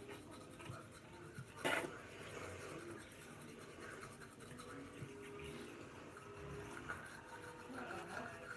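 Toothbrush scrubbing teeth, a faint rapid brushing, with one sharp knock about two seconds in.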